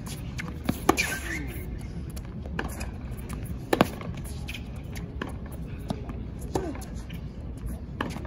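Tennis rally on a hard court: sharp hits of rackets on the ball and of the ball bouncing, one every second or two, the loudest about a second in and near four seconds in.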